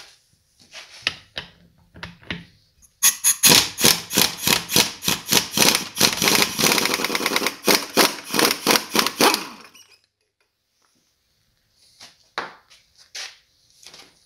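Pneumatic impact wrench hammering rapidly on a CVT clutch nut for about seven seconds, breaking it loose, then cutting off suddenly. A few light clicks come before and after.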